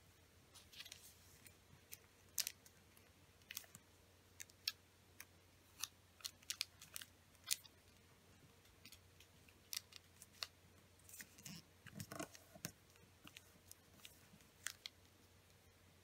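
Origami paper crackling and rustling as it is folded and creased by hand: a string of short, crisp crackles at an uneven pace.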